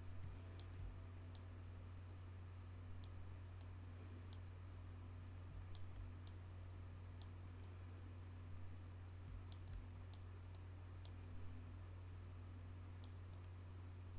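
Computer mouse button clicking as the Clone tool is applied: faint, irregular single clicks about every half second to second, over a steady low hum.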